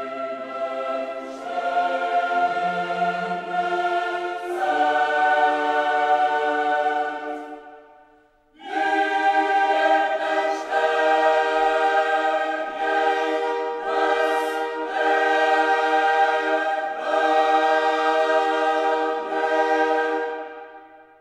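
Slow background music of long, held choir-like chords. It fades out about eight seconds in, starts again half a second later, and fades out near the end.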